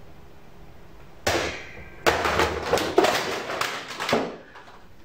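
A man crying loudly in broken, gasping sobs: one sudden sob about a second in, then a run of rough sobs that dies away a little after four seconds.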